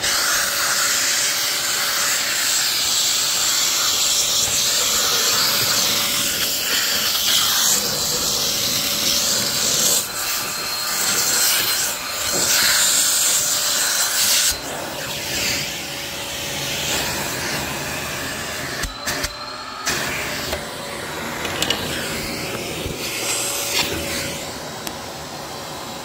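Electrolux canister vacuum running with air rushing steadily through the hose and crevice tool, over a faint steady whine. The rushing changes as the tool is moved, and drops away sharply for a moment about two-thirds in.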